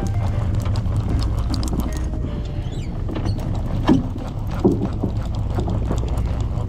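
Boat engine running with a steady low hum while a conventional fishing reel is cranked, winding line in under load. Two brief knocks about four and four and a half seconds in.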